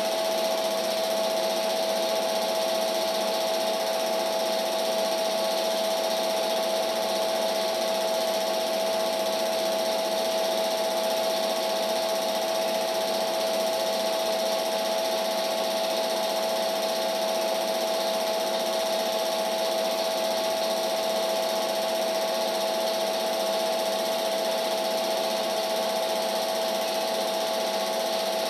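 Film projector running steadily: a constant mechanical whir with a steady hum, unchanging throughout.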